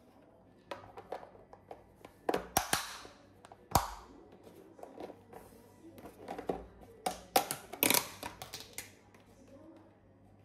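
Kitchen handling noises while food is being prepared: a run of sharp clicks and knocks with short rustling bursts, loudest about two and a half, four and eight seconds in.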